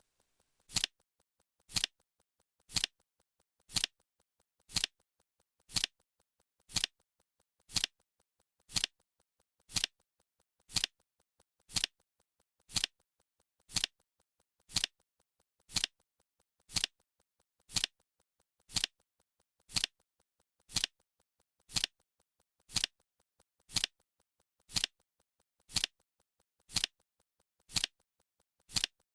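Flip clock ticking sound effect: one short, sharp click every second, evenly spaced, marking each second of the countdown.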